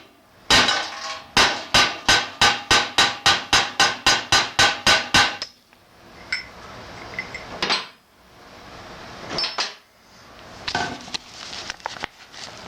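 Hammer striking a grommet-setting tool on a metal plate: one blow, then a quick even run of about fifteen ringing metal strikes, roughly four a second, setting a tarp grommet. Afterwards a few light clicks and handling of the small metal parts.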